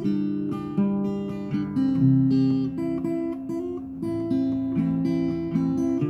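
Acoustic guitar played solo, picked and strummed chords with the harmony changing every half second or so, the notes left ringing.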